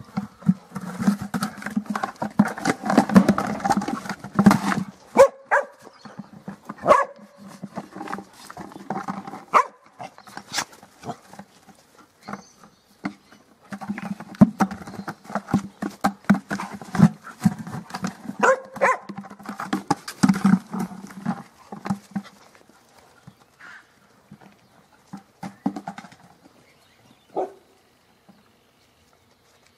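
A dog growling in play, in two long stretches, while a plastic flower pot knocks and scrapes over dirt with sharp clicks.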